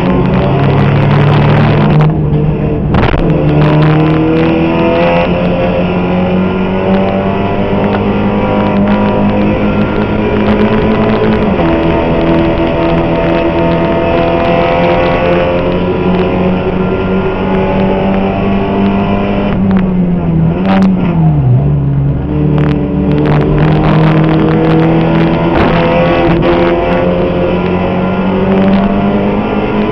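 Seat Supercopa race car's turbocharged four-cylinder engine at racing revs, heard from inside the cockpit, its pitch rising and falling through the gears. About two-thirds of the way through the revs drop sharply as the car brakes and downshifts, then climb again, with a few brief knocks from the car along the way.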